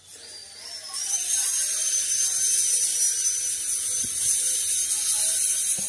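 A loud, steady high-pitched buzzing hiss that starts about a second in, with a thin whistling tone running through it.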